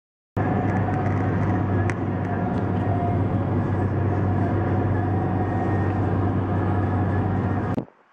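Loud, steady mechanical hum: a low drone with a few fixed tones above it, cutting in just after the start and cutting off abruptly near the end.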